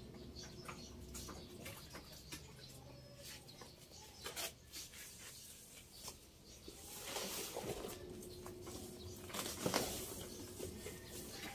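Rustling, scraping and small knocks of hands working a plant and its soil in a pot, with two louder spells of rustling in the second half.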